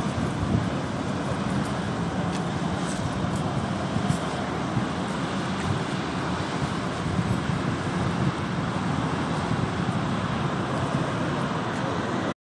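Steady roadside traffic noise, a continuous rumble with no distinct events, cutting off abruptly near the end.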